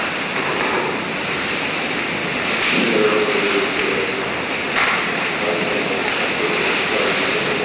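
Large fire burning an office workstation, fed by a heptane spray burner: a steady rushing noise like a waterfall, broken by a couple of brief crackles.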